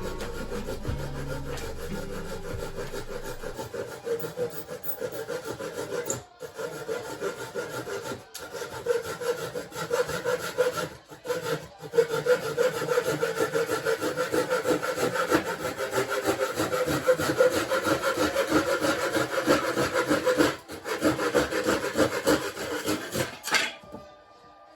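Japanese hand saw (nokogiri) cutting through wood in quick, even strokes. There are a few short pauses, and the sawing stops just before the end.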